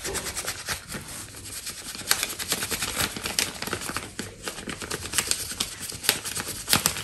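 Ink eraser rubbed quickly back and forth over ball-pen writing on paper: a fast run of dry, scratchy strokes, several a second. The ink is coming off only slowly.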